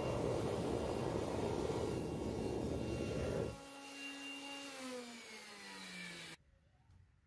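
Air blower feeding a homemade crucible furnace running loudly, then switched off about three and a half seconds in. Its motor whine falls in pitch as it spins down, and the sound cuts off suddenly near the end.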